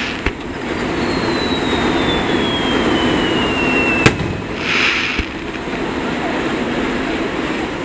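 Aerial firework shells bursting in sharp bangs, the loudest about four seconds in. Before it comes a long whistle that falls slowly in pitch and stops at that bang.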